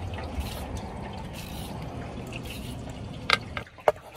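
Water running from a kitchen tap in a steady stream, shut off sharply near the end, with a couple of sharp clicks of utensils or dishes around the moment it stops.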